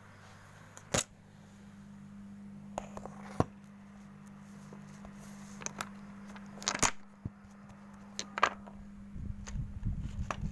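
A few separate sharp clicks and knocks over a steady low hum, with a rough rubbing noise building near the end.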